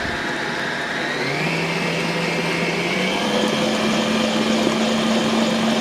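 Planetary stand mixer running with its flat paddle beater through thick cake batter. The motor hum steps up in pitch about a second in and again about three seconds in, as the speed is turned up.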